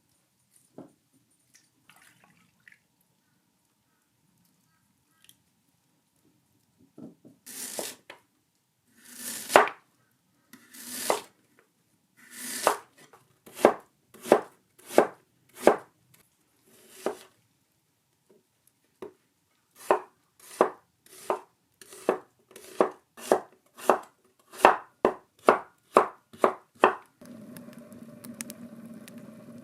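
Knife chopping food on a cutting board: a few slow strokes, then a steady run of about two cuts a second. The chopping stops near the end and a steady hiss with a low hum takes over.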